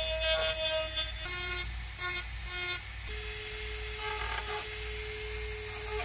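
Handheld electric rotary tool with a small bit drilling into a graphics card's circuit board to cut out an internal layer short between the 5 V and 12 V planes. The motor's whine drops in pitch about a second in, starts and stops three times, then runs steadily at a lower pitch from about three seconds in.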